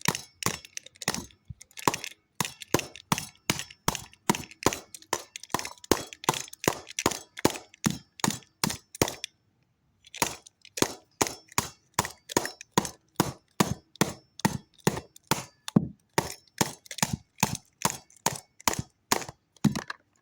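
A pencil rapped again and again on a hard object, likely the remote control: sharp, dry taps about three a second, with one short pause a little under halfway through.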